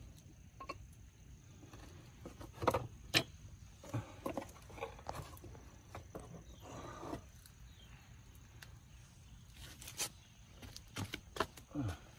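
Brake pads being handled: scattered sharp clicks and light knocks as metal-backed disc brake pads are taken out of their cardboard box and set against each other, with a brief rustle of the cardboard about seven seconds in.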